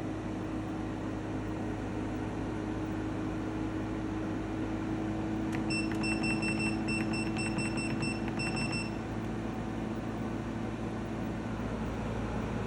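EcoFlow WAVE portable air conditioner running with a steady hum over an airy rush, the unpleasant, loud noise its owner complains of; a second, lower hum joins about halfway through. A quick run of short high beeps sounds for about three seconds in the middle.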